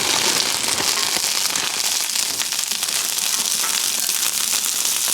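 Frozen waffle fries sizzling and crackling in hot olive oil on a Blackstone flat-top griddle, a dense steady spatter of fine pops.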